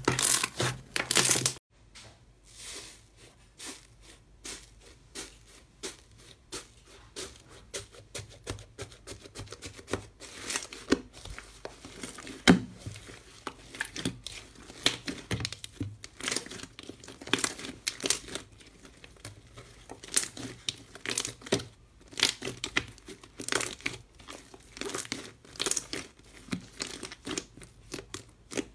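Hands kneading, pressing and pulling slime: wet, sticky crackles, pops and tearing sounds in irregular bursts. A pale green slime is squeezed for the first second or so, then a thick blue slime in a metal tray is pressed and stretched, with one sharp pop near the middle.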